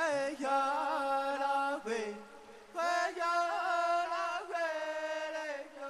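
A solo voice chanting in long held notes with small wavering ornaments, breaking off briefly about two seconds in before taking up the next long note.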